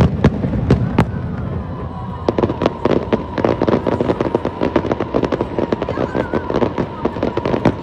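Fireworks going off: a few loud bangs in the first second, then from about two seconds in a dense, rapid crackle of many sharp reports.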